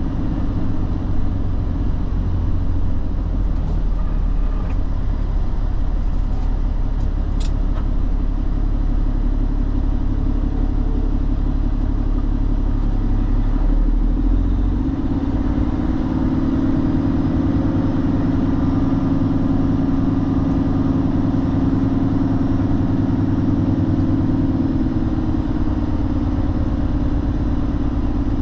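Semi truck's diesel engine running steadily. About halfway through, the deep low rumble gives way to a higher drone. A single sharp click about seven seconds in.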